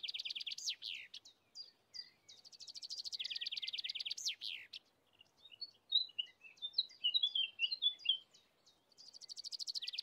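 Songbird singing: a fast, high trill about two seconds long that ends in a few sweeping notes, repeated three times, with scattered short high chirps in between.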